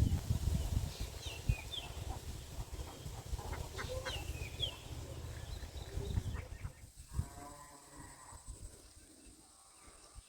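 Birds chirping in short falling notes, then a farm animal, likely a goat, bleats with a drawn-out call of about a second, about seven seconds in, followed by a fainter second bleat.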